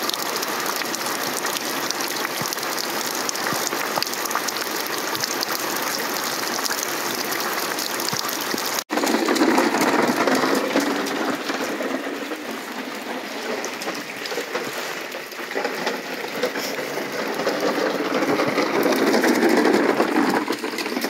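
Steady rain falling into puddles and onto wet ground. About nine seconds in, the sound cuts to a large plastic toy dump truck being pushed over wet, muddy ground, its wheels rolling, loudest just after the cut and again near the end.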